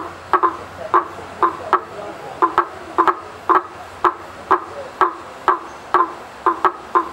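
A frog calling: a steady series of short, hollow knocking notes, about two or three a second, some in quick pairs.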